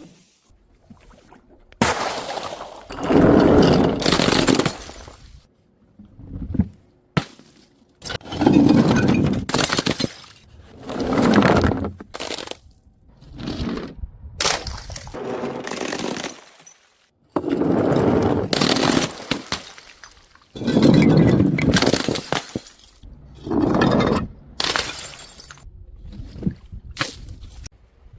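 Glass bottles breaking one after another, about nine crashes of shattering and crunching glass, each lasting a second or two with short pauses between.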